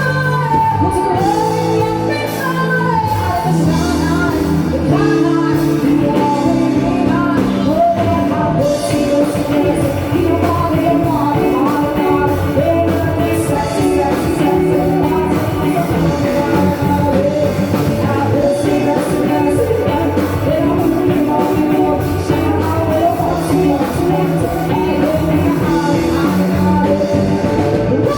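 Rock band playing at full volume, with a singer's voice over the band.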